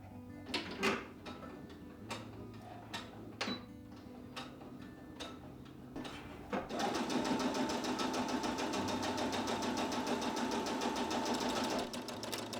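A few light clicks and taps, then about seven seconds in an electric sewing machine starts stitching at a fast, even rate for about five seconds and stops.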